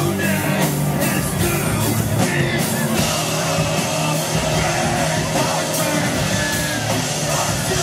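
Live rock band playing with electric guitars, recorded from within the crowd; the sound gets fuller and brighter about three seconds in.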